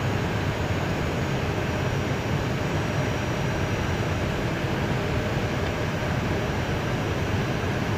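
Steady cockpit noise of an Airbus A320 taxiing with its engines at idle: an even rushing hum that holds at one level, without change.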